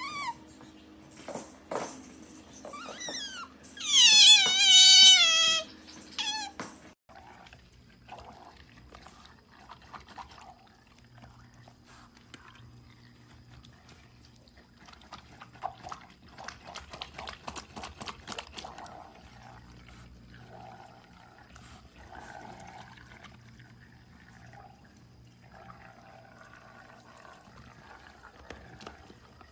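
Pet otter calling: a quick run of high, cat-like squealing calls, each falling in pitch, loudest about four to six seconds in. After that come quieter small clicks and water sounds.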